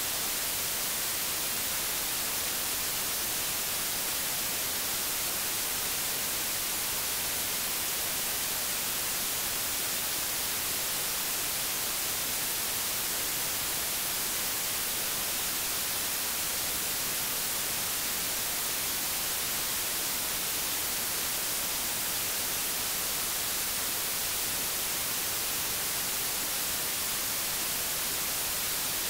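Steady static hiss, even throughout with no other sound: noise on the audio track of a VHS tape transfer.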